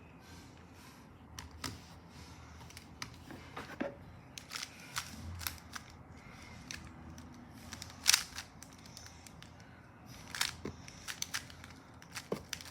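GAN 15 3x3 speed cube being turned by hand: irregular plastic clicks and clacks of its layers, with one louder clack about eight seconds in.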